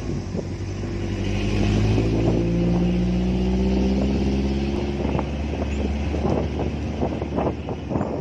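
Motorcycle engine pulling along a rough dirt track, its pitch rising gently over the first few seconds. In the second half, frequent knocks and rattles join it as the bike goes over the bumpy ground.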